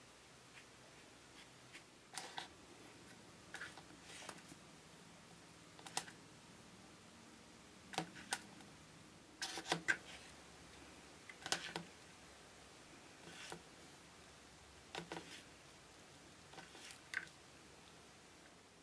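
Sparse small clicks, taps and light rustling from hands working a miniature model tree into a plastic tub of foam flock. The clicks come every second or two.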